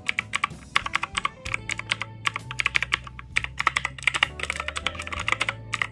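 Typing on a Rexus RX-KX3 mechanical keyboard: a fast, irregular run of keystroke clacks.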